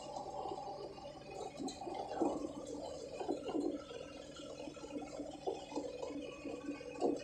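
Cab noise of a Mahindra Jeeto mini truck on the move: a steady drone with irregular rattles and knocks from the cab, the loudest about two seconds in and again near the end.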